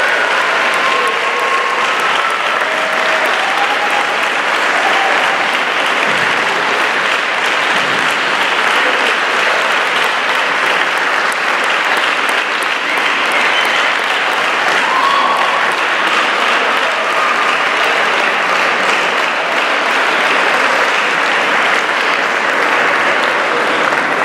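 Audience applauding steadily, an even, unbroken clapping of many hands after a choir performance ends.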